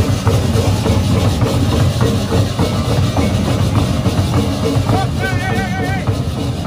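Balinese procession gamelan playing a busy, drum-driven rhythm with percussion throughout, and a brief wavering high tone about five seconds in.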